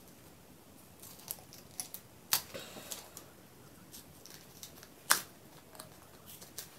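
Scissors cutting pieces of double-sided tape from a roll: a few sharp snips and light clicks, the loudest about five seconds in.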